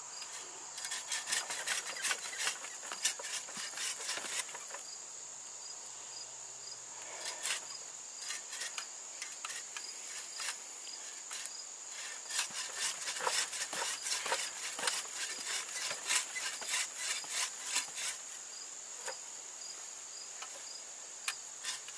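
Hand saw cutting through a tree trunk: runs of short scraping strokes that start and pause irregularly, the busiest spell coming past the middle. A steady high insect trill, typical of crickets, sounds throughout.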